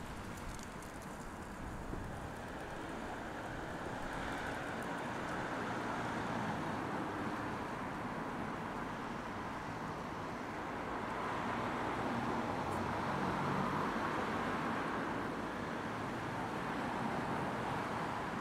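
Street traffic: cars passing with a steady hiss of tyres and engines, swelling twice as vehicles go by.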